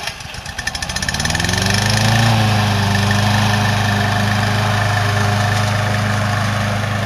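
The engine of a hybrid remote-control slope mower cranking with rapid strokes, catching about a second in, revving up and settling into steady running.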